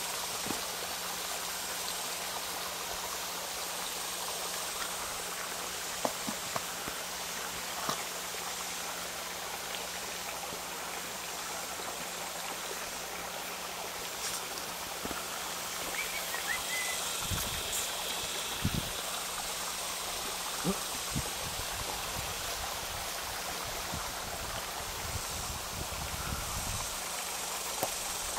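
Steady running water from the small stream feeding a garden pond, with a few faint knocks and clicks over it.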